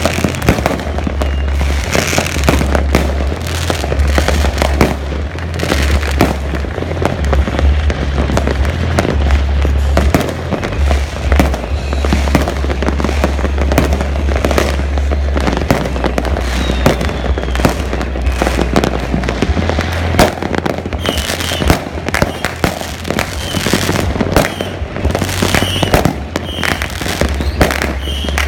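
New Year fireworks going off in great numbers: a continuous, irregular barrage of bangs, pops and crackles, with no let-up.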